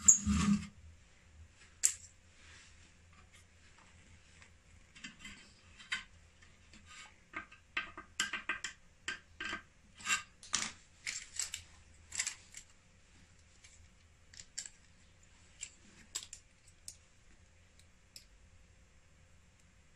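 Hands working inside an opened power inverter's sheet-metal case: a sharp knock at the start, then a run of quick clicks and rattles of the metal chassis and wiring being handled, thinning to scattered ticks.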